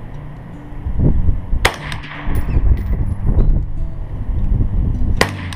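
Two sharp suppressed shots from a Smith & Wesson M&P15 AR-15 rifle, the first under two seconds in and the second about three and a half seconds later.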